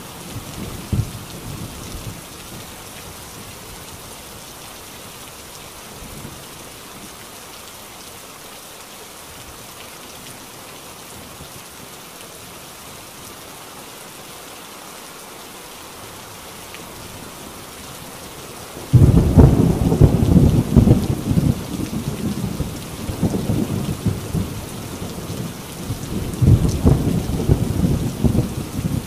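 Heavy rain drumming steadily on a tin roof, with thunder: a low rumble dies away in the first couple of seconds, then a sudden loud thunderclap about two-thirds of the way through rolls on for several seconds, and a second rumble swells near the end.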